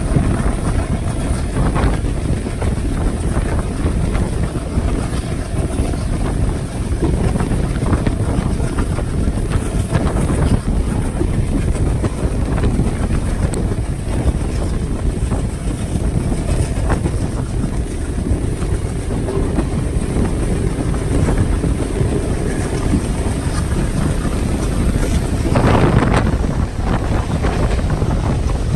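Passenger train running at speed: a steady rumble with wind buffeting the microphone, swelling louder for a moment about 26 seconds in.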